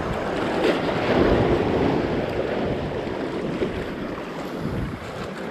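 Sea surf washing against shoreline rocks, swelling about a second in and then easing, with wind buffeting the microphone.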